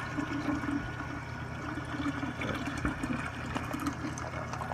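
Apple juice pouring from a jug into a glass jar of liquid, splashing steadily as the jar fills.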